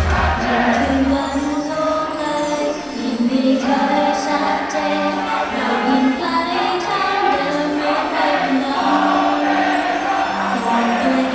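Female idol group singing a pop song together live over loud backing music.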